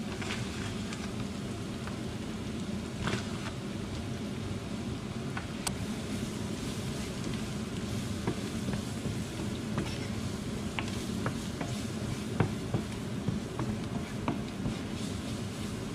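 Sliced red onions caramelizing in a hot frying pan, sizzling steadily, with flour just stirred in. A wooden spoon stirs and scrapes through them, giving short clicks and taps against the pan, more often in the second half.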